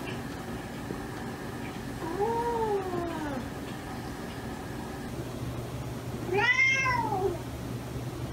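Domestic cat meowing twice: a softer meow about two seconds in, then a louder, higher-pitched meow about four seconds later.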